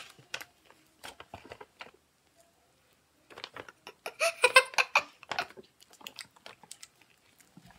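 Wet clicks and smacks of mouths stuffed full of marshmallows. About four seconds in comes a denser cluster of clicks with short muffled voice sounds through the packed mouth.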